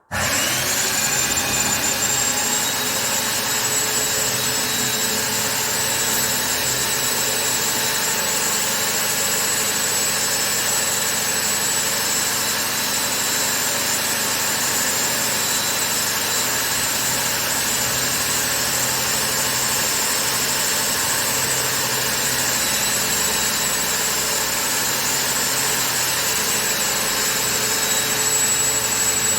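Airless paint sprayer running steadily, a continuous machine drone with steady high whining tones that starts abruptly.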